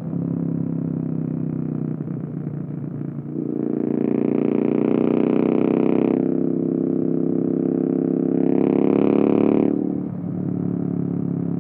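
Royal Enfield Interceptor 650's 270-degree parallel-twin exhaust, run through free-flow headers and unbaffled mufflers, heard while riding at road speed. The note gets louder and harsher twice, from about three and a half seconds in and again near eight seconds, then falls back to a steadier cruising drone just before ten seconds.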